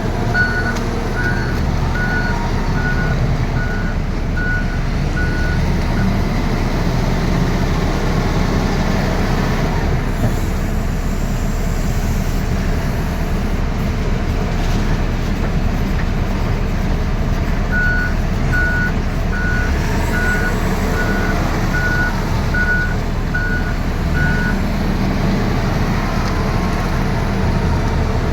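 Heavy earthmoving machine's diesel engine running steadily under load, with its reversing alarm beeping about one and a half times a second at the start and again past the middle while the machine backs up.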